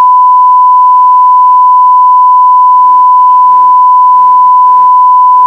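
One long, loud, steady censor bleep: a single unbroken pure tone laid over speech to cover swearing, with faint talk just audible beneath it.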